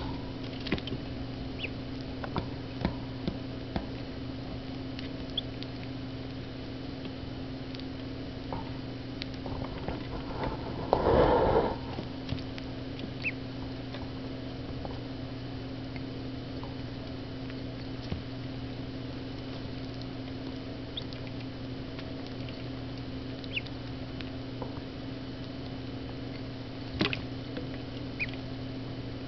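Cayuga ducklings pecking and scrabbling in crumble feed in a dish: scattered small taps and scratches over a steady electrical hum, with a louder burst of scrabbling about eleven seconds in.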